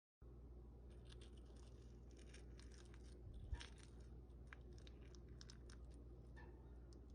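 Faint kitchen handling noises: light scattered crackles and rustles over a low steady hum, with one soft thump about halfway through.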